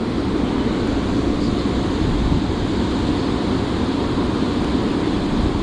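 Steady low rushing roar of water flowing at a dam.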